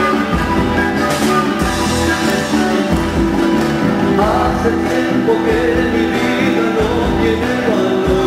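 Live Andean folk band playing: a lead voice singing over a strummed string instrument, electric bass and keyboard, with a steady beat.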